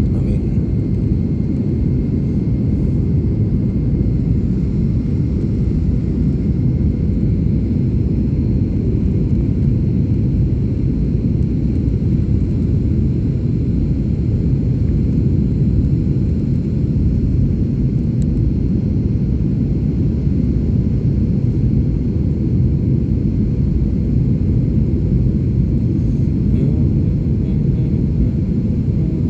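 Steady low rumble of an airliner in flight heard from inside the cabin: engine and airflow noise holding even throughout, with a faint thin whine above it.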